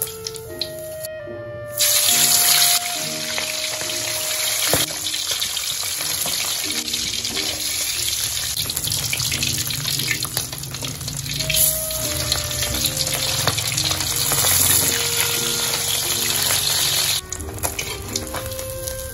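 Fish deep-frying in hot oil in a wok: a loud, steady sizzle that starts suddenly about two seconds in and cuts off sharply near the end, with a few knocks of a metal spatula against the wok.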